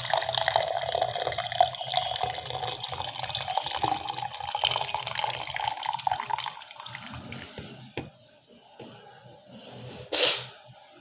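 Hot ginger water poured through a sieve into a cup, a steady splashing pour whose pitch rises slightly as the cup fills, tailing off after about six seconds into scattered drips. A brief loud noise sounds near the end.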